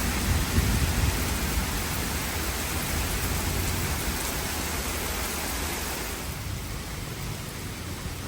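Heavy rain in a thunderstorm, with a low rumble of thunder in the first couple of seconds that dies away. The rain's hiss softens near the end.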